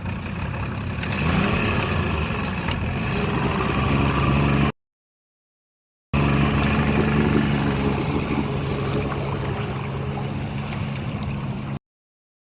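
A vehicle engine running steadily, in two stretches split by about a second and a half of dead silence, and cutting off abruptly near the end.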